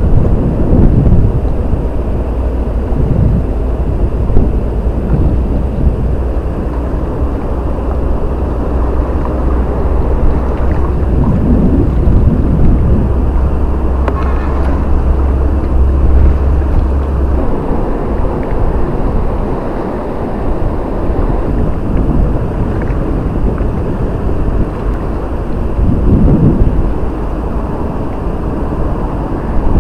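Wind buffeting the microphone: a loud, uneven low rumble, with a steady low hum underneath that stops abruptly a little past halfway.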